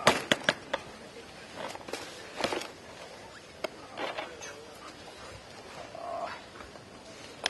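Luggage and its contents being handled: a quick run of sharp clicks and knocks at the start, then scattered rustling and knocks.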